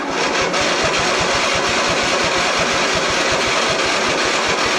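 Electric starter cranking the engine of a 2001 Huskee (MTD) lawn tractor, powered by a portable jump starter because the tractor's battery is dead. An even, rhythmic churning that starts abruptly and holds steady without the engine catching.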